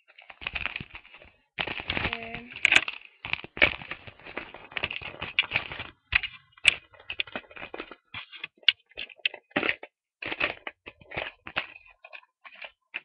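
Irregular clicks, taps and rustles of small plastic makeup items and a fabric makeup bag being handled close to the microphone.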